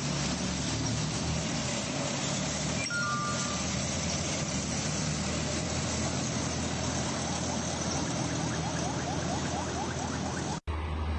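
Engine and road noise of a military convoy passing on a city street, including a tracked armoured vehicle, recorded on a phone. About three seconds in there is a short two-note beep, the second note lower. Near the end a cut leads into a louder, lower engine rumble of passing vehicles.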